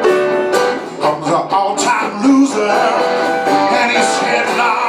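Live acoustic band playing: strummed acoustic guitars under a man singing the lead vocal.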